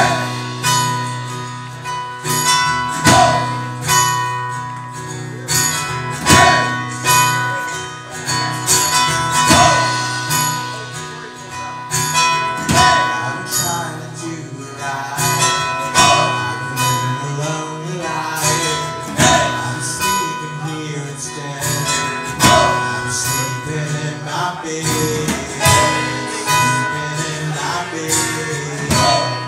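Live acoustic music: two acoustic guitars strummed in a steady rhythm, with a man singing lead.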